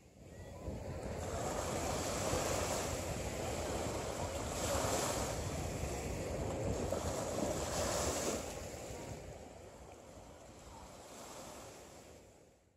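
Shallow surf washing up over a sandy beach, hissing in swells a few seconds apart, then fading out near the end.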